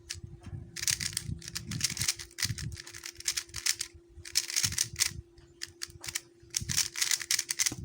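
QiYi MS 3x3 speedcube being turned rapidly by hand, its plastic layers clacking in quick bursts of about a second each, four or five times with short pauses between.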